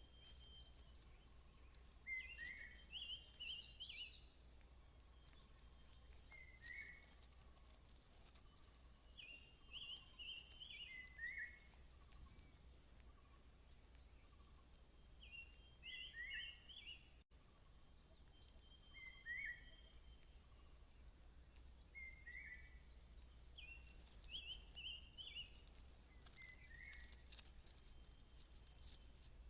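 Faint outdoor bird calls: a short two-part song phrase repeated every few seconds, with many thin, high chirps scattered between, over a low steady background hum.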